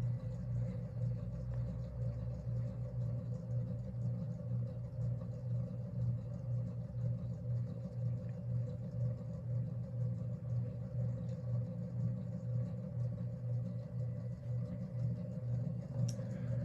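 Antique Westinghouse ceiling fan running at speed, giving a steady hum with noise from its worn bearings. The bearings have run dry for a long time and carry only a little test oil.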